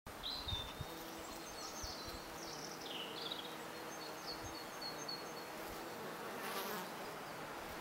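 A flying insect buzzing steadily close by, with small birds singing short high chirps and trills over it.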